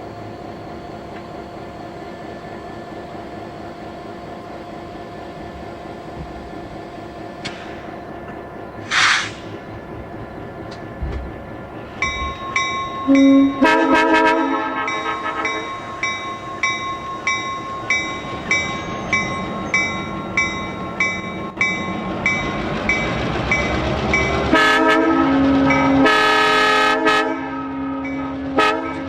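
Locomotive running with its Nathan M3 three-chime air horn sounding, a first blast about halfway through and a longer one near the end, over a ringing repeated about twice a second.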